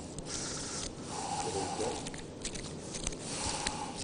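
A man's faint breathing and sniffing, with a few light clicks and taps.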